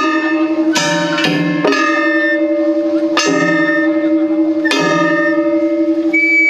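Festival ohayashi from a Kumagaya Uchiwa Matsuri float: metal kane gongs clanging in an uneven run of ringing strikes over a steady lower tone. A high held note comes in near the end.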